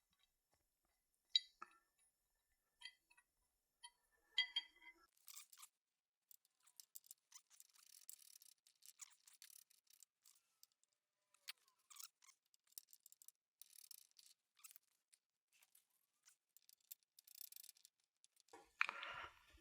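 Faint, scattered clicks and light clinks of bumper shackles being handled and fitted to the bumper, with a few sharper clicks in the first few seconds and then many small ticks.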